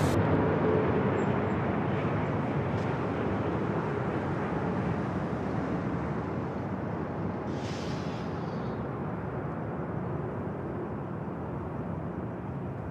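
Jet engines of a heavy military transport at takeoff power, a steady roar that slowly fades as the aircraft rolls away down the runway.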